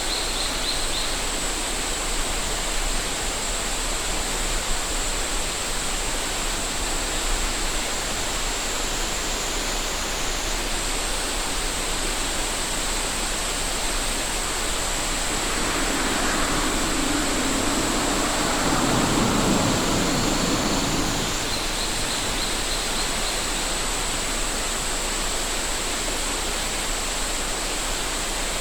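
Steady rushing of a mountain river under a continuous high, even drone of cicadas. Brief fast high trills come near the start and about three-quarters of the way through, and a louder, lower rush swells up just past the middle and cuts off some six seconds later.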